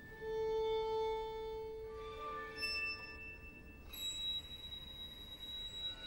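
Slow, sustained violin tones from a solo violin with tape playback: a long held note begins just after the start, a higher note enters about two seconds in, and a high thin tone takes over for the last two seconds.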